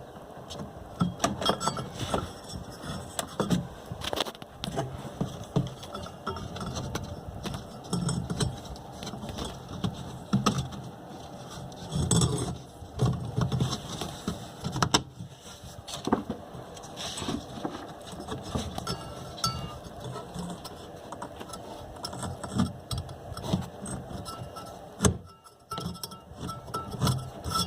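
Irregular clicks, clinks and knocks of hands and metal parts being worked on a washing machine's motor and gearbox, with the V-belt being fitted between the two pulleys.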